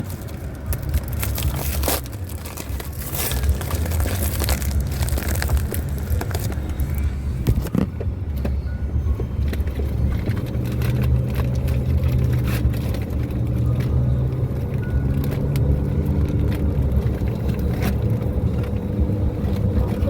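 Steady low rumble of a car cabin on the move, with scattered crackles, scrapes and clicks of a mailer package being torn open.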